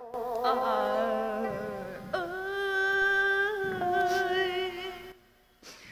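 A voice singing or humming a slow lament in long held notes with a wavering vibrato, over soft background music. It stops about five seconds in.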